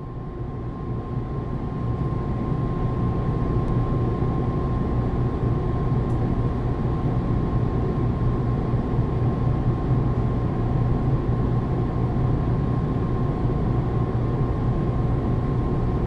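JR KuMoHa 123 single-car electric railcar standing at the platform with its electrical equipment humming steadily: a low hum with a thin high tone held over it. The sound fades in over the first two seconds.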